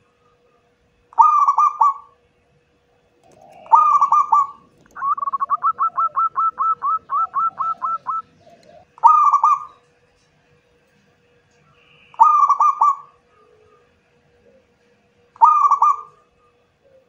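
Zebra dove (perkutut) cooing: five short coo phrases about three seconds apart, with a fast run of about seventeen quick rolling notes in the middle lasting about three seconds.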